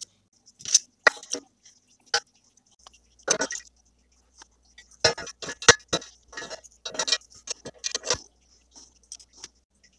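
Irregular metallic clinks and knocks from steel pliers and a rusted shovel blade against a steel tank, with liquid splashing as the blade is swished through the bath.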